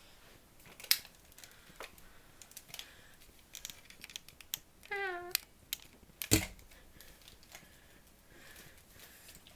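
Clicks, taps and knocks from toys being handled, with a loud knock about a second in and another near six seconds, and a short high wavering squeak just before five seconds.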